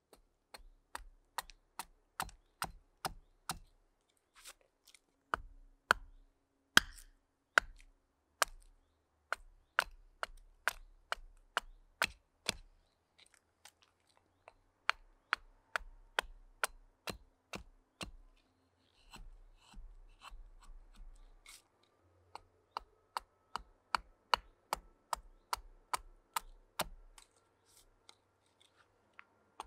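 Carving hatchet chopping a wooden spoon blank held against a chopping stump: quick, sharp chops at about two a second, with a couple of short pauses.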